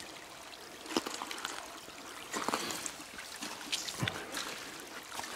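Snowmelt water trickling, with a few scattered sharp knocks and crunches.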